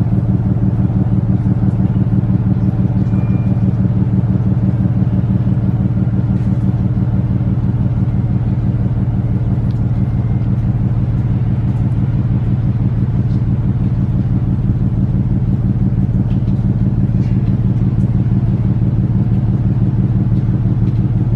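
Diesel engines of the container ship MSC EVA running, a steady low throbbing hum with a fast, even pulse.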